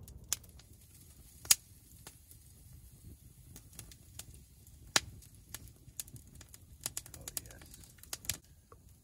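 Wood campfire crackling, with irregular sharp pops from the burning sticks, the loudest about one and a half and five seconds in.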